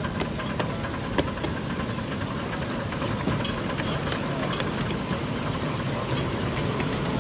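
A miniature steam locomotive running with its train along the track: a steady rumble of wheels on rails, broken by scattered sharp clicks.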